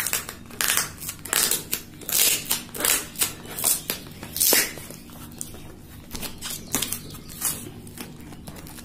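Cardboard parcel and plastic wrapping being handled and torn open: a quick, irregular run of crinkling and ripping rustles, louder in the first half and softer after about five seconds.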